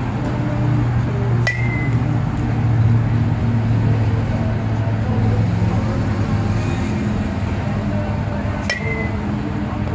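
Metal softball bat hitting machine-pitched softballs: two sharp pings about seven seconds apart, each with a brief high ring, over a steady low hum.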